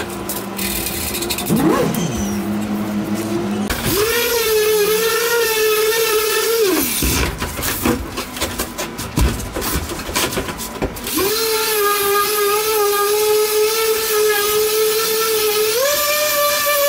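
A small electric power tool spins up and runs with a steady whine, stops about seven seconds in, and after a few seconds of knocks and scraping runs again, stepping up in pitch near the end.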